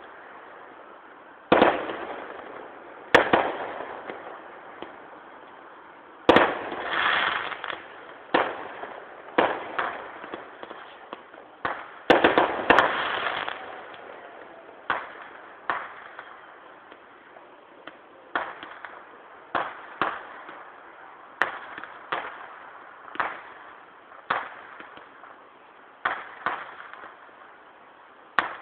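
Distant aerial fireworks display: about twenty sharp bangs, one every second or two, each trailing off in a rolling echo, with bursts of crackle around 6 and 12 seconds in. Recorded through a mobile phone's microphone, which thins the sound.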